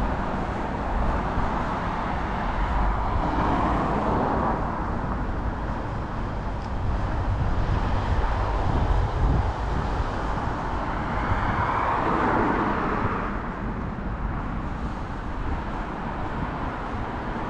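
City road traffic: a steady rumble of cars on a multi-lane road, with passing cars swelling louder about three seconds in and again about twelve seconds in.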